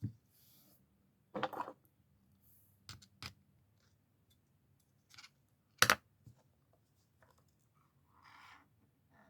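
Scattered short clicks and light knocks from handling a heavy iron or steel piece, with one louder click a little past the middle.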